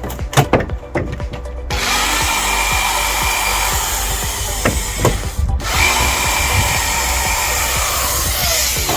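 A power tool running in two steady runs of about four and three seconds, with a brief stop between them, after a few light knocks at the start.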